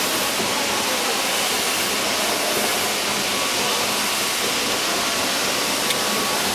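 Steady, loud hiss of background noise with no rhythm or tone, and one faint click about six seconds in.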